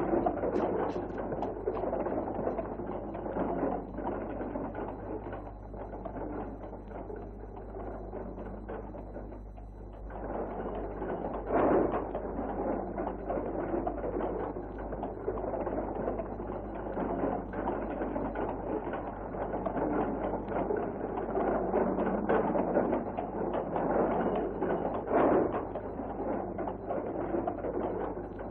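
Horse-drawn carriage on the move: hooves clip-clopping and wheels rattling in a steady clatter, with a couple of louder knocks along the way.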